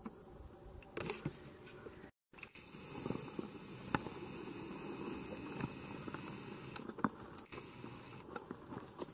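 Faint rustling and scattered light clicks of handling noise close to the microphone, broken by a brief moment of total silence about two seconds in.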